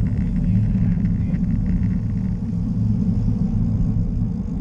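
Wind rushing over the microphone of a bicycle-mounted camera riding at speed: a steady low rumble.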